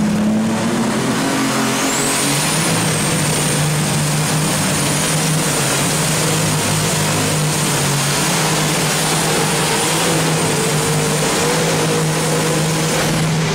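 Superstock pulling tractor's turbocharged diesel engine running flat out under load as it drags the weight sled, loud and steady. A high whine rises about two seconds in and then holds.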